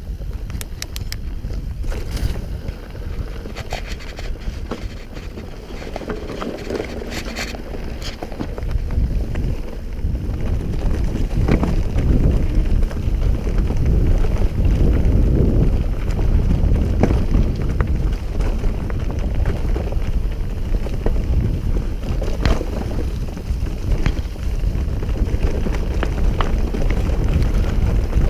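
Mountain bike riding fast down a dirt forest trail: wind noise on the microphone and tyres rumbling over the ground, with scattered clicks and knocks from bumps. The rumble grows louder about nine seconds in.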